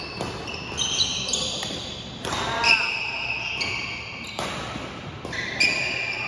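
Sneakers squeaking on a hardwood gym floor in short, high-pitched chirps during a badminton rally. A sharp crack of racket on shuttlecock comes about every two seconds. Both ring in a large, echoing hall.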